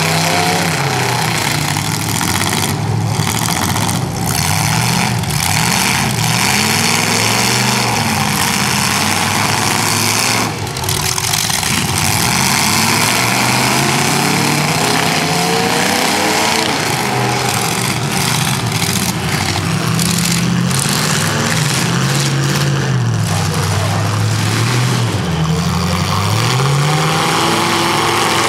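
Several demolition derby cars' engines revving, their pitch rising and falling over and over as the cars accelerate and back off, loud and continuous.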